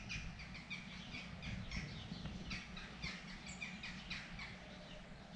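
A quick, steady run of short, high chirps, each falling in pitch, several a second, over a low background rumble.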